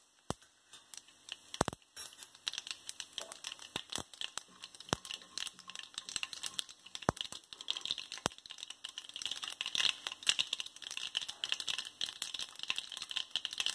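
Mustard and cumin seeds spluttering in hot oil in a kadai: scattered sharp pops at first, thickening into a dense crackle in the second half.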